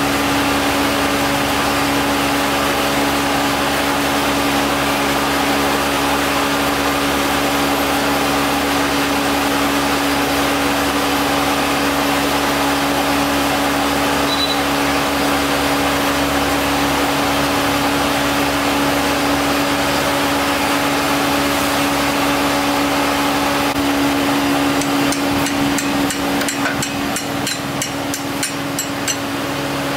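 A steady machine hum, with a run of light metallic clicks and taps near the end.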